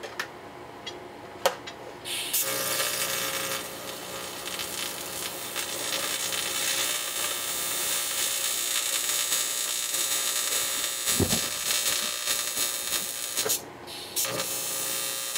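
A few light clicks and taps, then an electric welding arc hissing steadily with a faint buzzing tone. The arc breaks off for a moment near the end and then starts again.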